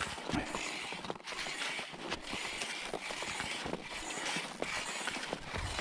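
Short skis fitted with climbing skins scraping and shuffling uphill over groomed corduroy snow, with poles crunching into the snow in a steady stride rhythm. The skins are holding: the skis do not slide back on the steep slope.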